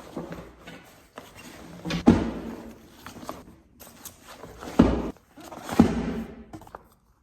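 Schoolbooks and folders being packed into a backpack: rustling and shuffling, with three dull thuds about two, five and six seconds in.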